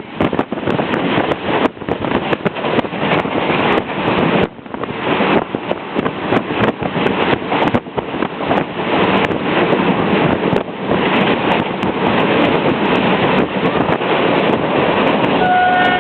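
A moving train carriage running with wind buffeting the microphone and many sharp clicks and rattles. Near the end a steady horn note starts.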